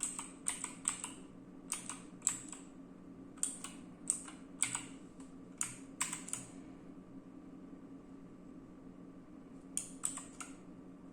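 Clicky key presses on a mechanical keyboard with Gateron Blue switches, struck one at a time and in quick little groups, then a pause of about three seconds before a few more near the end. A faint steady low hum runs underneath.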